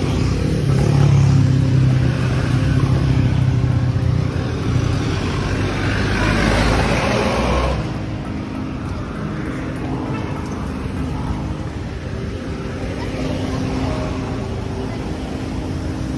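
Street traffic: motorcycles and cars passing on the road, with a steady engine hum and a louder rush as a vehicle passes close about six to eight seconds in.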